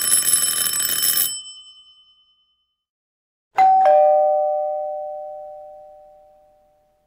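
A doorbell rings rapidly with a bright, fluttering ring for just over a second and then stops. About three and a half seconds in, a two-tone ding-dong chime sounds, a higher note followed by a lower one, both ringing out and slowly fading.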